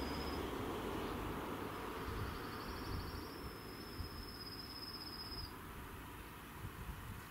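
A thin, high, insect-like buzz sounds twice: briefly at the start, then for about three seconds in the middle, pulsing at first and then steady. Under it, the faint rumble of a passed train fades away.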